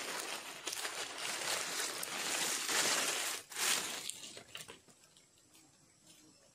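Hands rustling and crackling in dry leaf litter while working the sticks and cord of a ground snare; the rustling stops about four seconds in.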